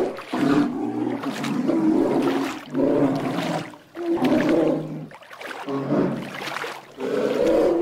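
Polar bear giving a run of low, pitched calls, one after another, each under a second long with short breaks between.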